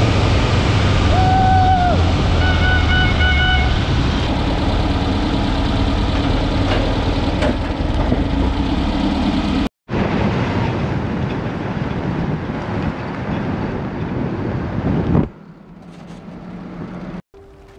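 Off-road vehicle driving, its engine running under heavy noise, with two abrupt cuts; it turns much quieter for the last two seconds or so.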